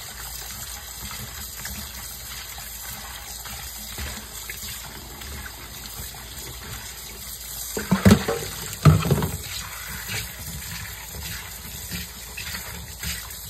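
Kitchen faucet running steadily into a stainless steel sink over cut pineapple chunks in a metal colander, while gloved hands rub and rinse the fruit. Two louder bumps come about eight and nine seconds in, a second apart.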